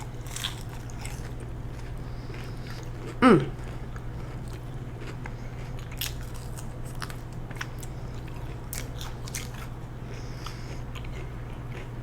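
A person chewing and crunching food close to the microphone, with many small sharp mouth clicks. About three seconds in comes one brief, loud sound that falls steeply in pitch.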